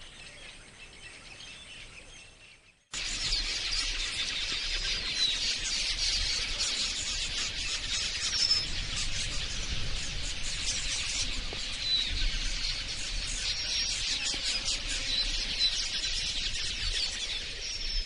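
A flock of red-billed queleas chattering: a dense, continuous chorus of high chirps that starts abruptly about three seconds in, after a quieter stretch.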